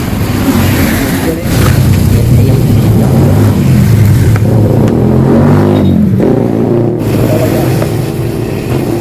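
Yamaha RX-King's single-cylinder two-stroke engine revving through its hollowed-out (bobok) exhaust, tuned for a crisp, raspy note. The revs rise and fall, with a longer climb about four and a half seconds in that drops back sharply a second later.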